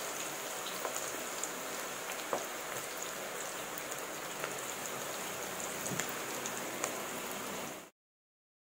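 Ragi (finger millet) pakoda deep-frying in hot oil: a steady sizzle with many small crackles and pops, cutting off abruptly near the end.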